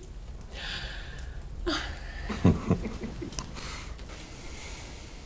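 Soft, breathy laughter: an exhaled breath, then a few short chuckles about two seconds in.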